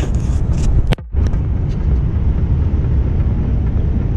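Volvo truck cab on the move: steady low engine and road rumble. About a second in there is a click and the sound drops out for a moment before the rumble resumes.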